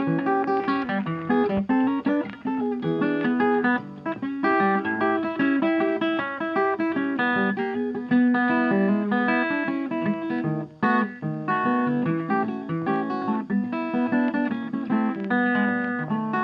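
Background music: a plucked acoustic guitar playing a quick, busy melody.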